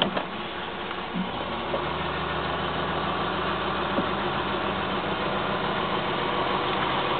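A 1967 Mercedes-Benz W108 250's straight-six engine running steadily on LPG shortly after a cold start, heard from inside the cabin. It grows gradually louder over the few seconds.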